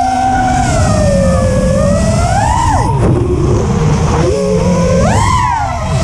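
FPV racing quadcopter's brushless motors and propellers whining as throttle changes, heard from the drone's own camera with rough wind noise underneath. The pitch wavers, climbs and then drops sharply about halfway through, and surges up and falls again near the end.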